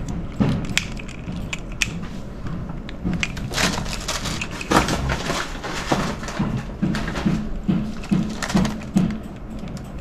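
Handling noise from loading an airsoft revolver: small clicks and knocks as plastic BBs are pressed into its metal cartridge shells, with crunching of the styrofoam packaging. The loudest handling comes around the middle.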